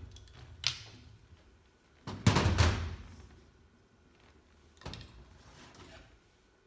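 Handling knocks from a PEX crimping tool and pipe being moved and set down: a light click, then a loud clunk and clatter about two seconds in, and a lighter knock near five seconds.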